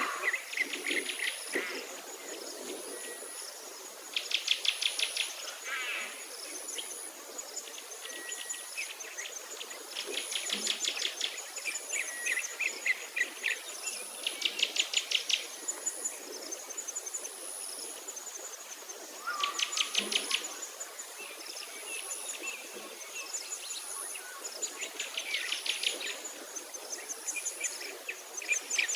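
Insects and birds calling. A high, thin insect buzz swells and fades at an even pace, while trills of rapid chirps about a second long come back every few seconds.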